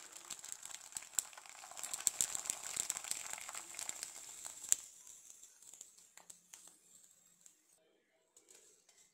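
Sago (sabudana) papad sizzling and crackling as it puffs up in hot frying oil, with many sharp pops. The sizzle dies away after about five seconds, leaving a few faint clicks.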